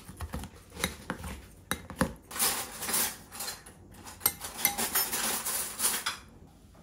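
Cutlery and dishes clinking and scraping: a busy run of sharp clicks and scrapes of metal on tableware that dies down about six seconds in.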